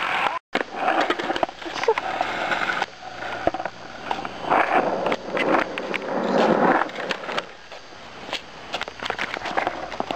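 Skateboard wheels rolling on rough asphalt, with the board clacking and knocking on the pavement, over several short cuts. Voices shout now and then.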